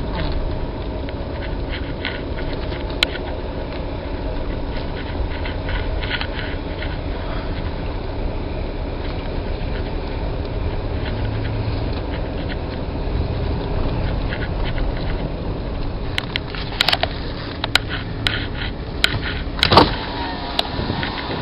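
Gendarmerie helicopter running steadily on the ground, a constant low drone of turbine and rotor. A few sharp clicks come near the end.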